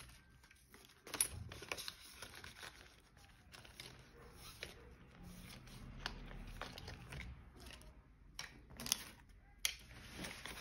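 Paper banknotes and cash envelopes being handled: faint, intermittent rustling and crinkling with a few small taps.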